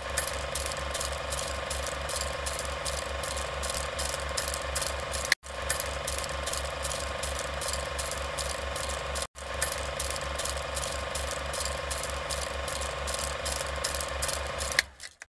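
Mechanical clicking in a fast, even rhythm over a steady whir, broken twice by a brief dropout and stopping near the end.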